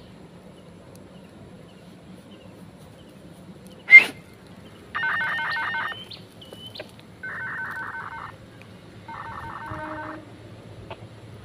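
Electronic beeping from a two-way radio: a sharp loud click about four seconds in, then three bursts of rapid warbling beeps, each about a second long.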